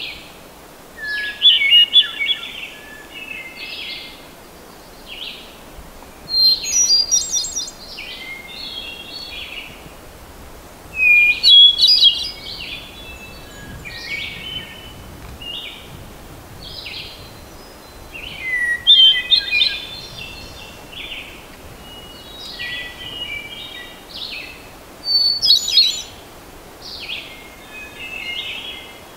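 Hermit thrush singing: five separate phrases, about one every five to six seconds, each opening on a held note and breaking into higher quavering notes, with fainter song notes between them.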